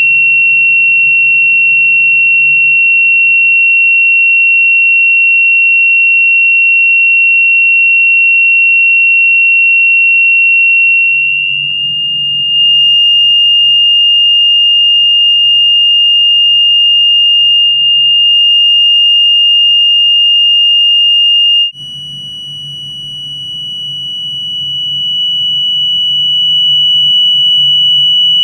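A loud, steady, high-pitched pure sine tone of the kind used as a test frequency in cymatics demonstrations. Its pitch steps up slightly twice, about twelve seconds in and again about twenty-two seconds in. At the second step it turns suddenly quieter, then swells back up over a few seconds.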